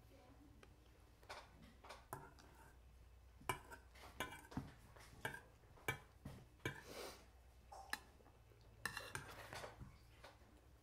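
Spoons clinking and scraping against bowls as people eat, a dozen or so light, irregularly spaced clinks over a faint low hum.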